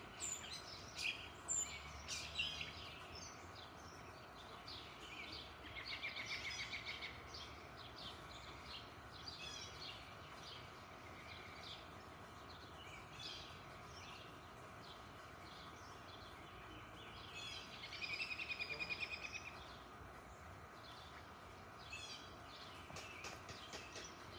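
Songbirds chirping and calling on and off, with a rapid trill about six seconds in and another about eighteen seconds in, over a faint steady background noise.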